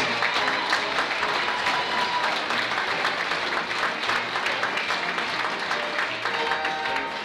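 Audience applause over the show's music, with the tap dancers' steps clicking underneath.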